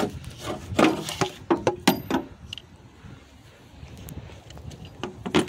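Clicks, knocks and rubbing of the loosened injector driver module being worked free by hand in an engine bay, busiest in the first two seconds, with one more knock near the end.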